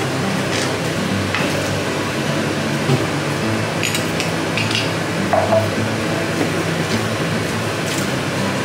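Food-prep handling sounds: cooked pasta tipped from a plastic colander into a plastic bowl, and a wooden spoon stirring and knocking against the bowl, with scattered short clicks and knocks.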